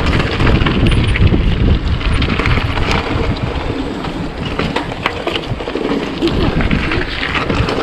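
Mountain bike riding fast over a rocky gravel trail: heavy wind buffeting on the microphone over the rumble and crunch of the tyres, with many sharp rattling clicks as the bike jolts over stones.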